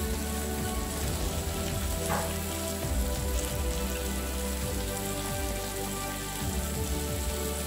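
Food sizzling on the grill plate of an electric grill-and-hot-pot combo, a steady hiss, under background music.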